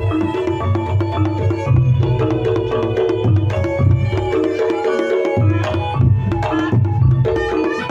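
Reog Ponorogo gamelan music: kendang hand drums beating a fast, busy pattern under ringing gong-chime tones, amplified through a sound system.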